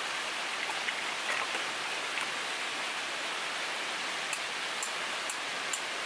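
Steady rushing of a river flowing close by. Four faint, light clicks come in the last two seconds.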